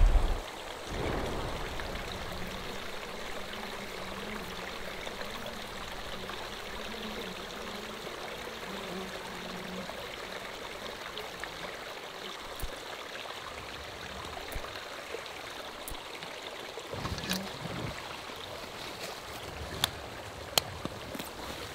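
A creek or stream running steadily, an even rushing of water. Near the end a few sharp clicks and knocks come over it.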